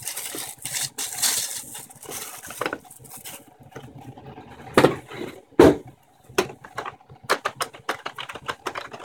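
Plastic wrapping rustling and crinkling as the keyboard is pulled out of its bag, then two loud thumps about five seconds in. From about six seconds on, keys click in quick succession as someone types on the Microsoft Natural Ergonomic Keyboard 4000's non-mechanical keys.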